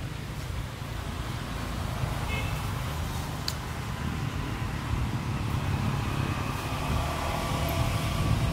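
Steady low background rumble that grows slightly louder, with a faint short high-pitched chirp about two seconds in and a single click about a second later.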